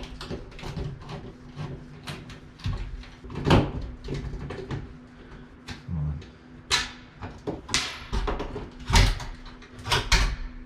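Irregular knocks, clicks and clatters of hand tools and hardware being handled during work on a ceiling light fixture, with a few louder thumps.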